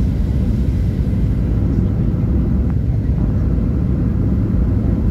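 Steady low rumble of jet-engine and airflow noise inside the cabin of a Boeing 737-800 descending on approach, heard from a window seat beside the CFM56 engine. A faint steady hum sits over the rumble.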